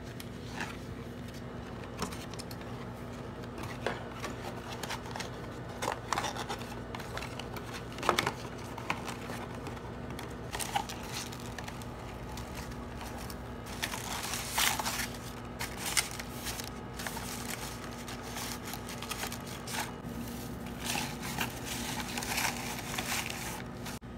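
Paper being handled while packing an order: a paperboard box folded, tissue paper rustling and crinkling, and shredded paper filler shuffled. Irregular rustles with a few sharper ticks, busiest past the middle and near the end, over a faint steady hum.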